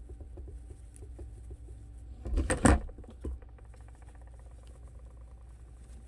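Wired fabric ribbon rustling and crinkling under the fingers as bow loops are pushed and turned inside out, with small scratchy clicks. A brief louder rush of noise comes about halfway through.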